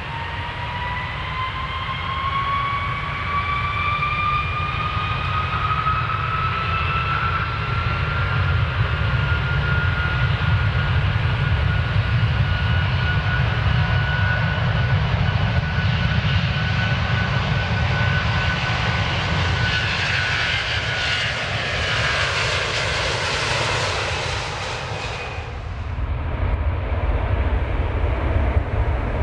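Airplane engines powering up for takeoff: a whine that rises in pitch over the first ten seconds and then holds, over a steady low rumble. About 25 seconds in the high hiss and whine cut off suddenly, leaving the low rumble.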